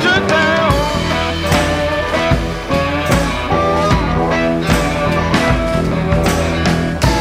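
Rock music: guitar lines with bending notes over steady bass and a regular beat.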